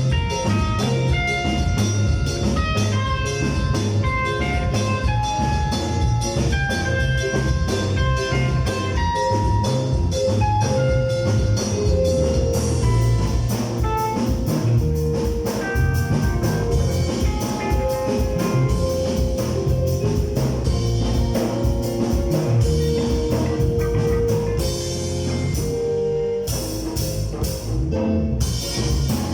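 Music with drums and melodic instruments, a steady beat throughout.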